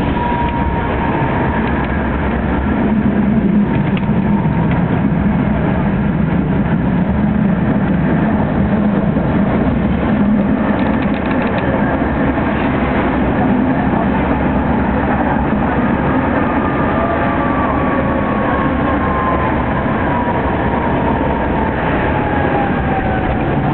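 Steady rumble and rattle of a tram running along its rails, heard from inside the car. A faint whine slowly falls in pitch over the last several seconds.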